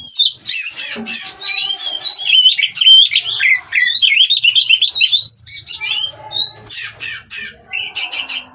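Oriental magpie-robin singing and calling, a fast, varied run of sweeping whistled notes mixed with harsh, scratchy notes, thinning out near the end.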